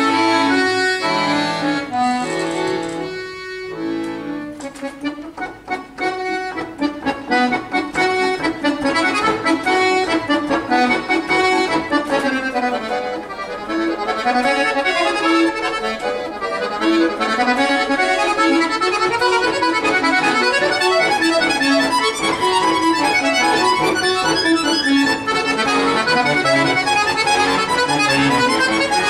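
Pigini chromatic button accordion played solo: a few held chords broken by short stops, then from about five seconds in fast runs of notes that climb and fall without pause.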